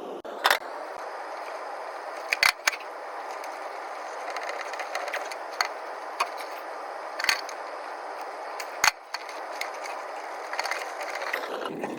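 Scattered sharp clicks and clacks of hand tools and metal hardware, about seven in all at uneven gaps, over a steady airy hiss, as a contactor is swapped in an electric duct heater's control panel.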